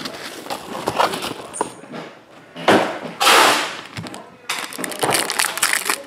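Foil trading-card pack wrapper crinkling and tearing as the pack is handled and ripped open. There is a loud tearing rustle about three seconds in, and dense crinkling near the end.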